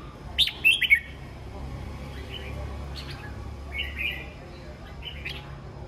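Red-whiskered bulbuls calling: a loud run of sharp chirps in the first second, then quieter short calls about a second apart.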